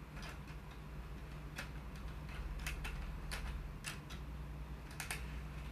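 Light plastic clicks and taps as an N-gauge model train car is handled and pushed along a plastic rerailer ramp onto the track: about ten scattered clicks, some in quick pairs, over a steady low hum.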